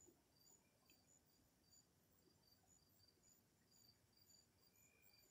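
Faint chirping of night insects in an even rhythm, about two chirps a second, over near silence.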